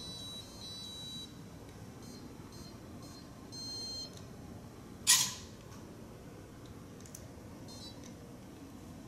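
ArtecRobo 2.0 Core board's buzzer beeping: several short electronic beeps and one longer beep. About five seconds in comes one loud, sharp snap as the block-built gator's jaw snaps shut.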